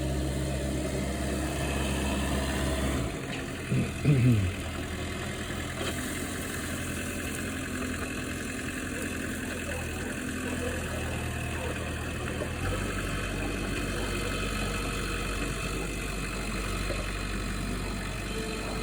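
A work vehicle's engine idling steadily, its low hum shifting to a new pitch twice. A short, loud call with a sliding pitch cuts in about four seconds in.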